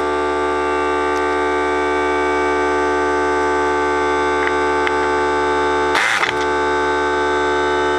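3-gallon oilless pancake air compressor running with a steady, loud hum, cycled on to build pressure while an air impact screwdriver draws air. About six seconds in there is a short hiss-like burst from the air screwdriver.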